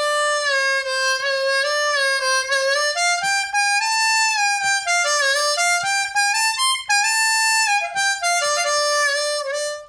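Seydel 1847 Lightning diatonic harmonica played solo: drawn notes on holes 4 and 6 are bent down in pitch and released, checking the bends, and they come out clean. One loud, bright note at a time, stepping up and back down with short dips in pitch.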